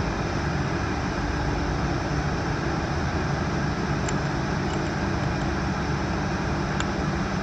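Steady background hum and hiss of ventilation or shop machinery, with two faint light clicks, one about halfway through and one near the end.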